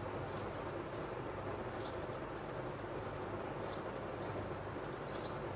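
Short high chirps repeating irregularly, a little under one a second, over steady room noise with a low hum.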